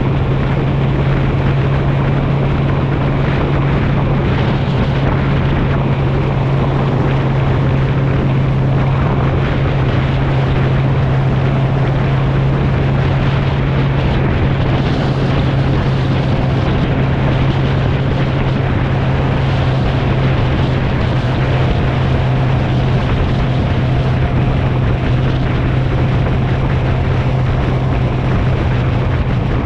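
Motorcycle engine running at a steady cruising speed, a constant low drone that holds one pitch, under a rush of wind and road noise.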